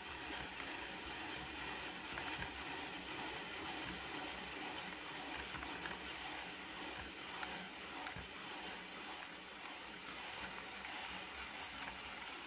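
Hand-cranked spiralizer cutting a raw sweet potato into noodles, a steady scraping noise with a few faint ticks as the crank turns.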